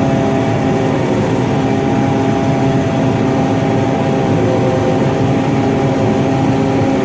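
Combine harvester running steadily while cutting soybeans, heard from inside the cab: a constant mechanical drone with several steady hum tones.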